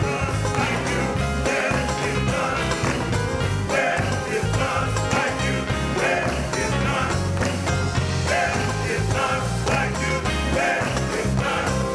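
Church band music playing, with a strong bass line under a moving melody.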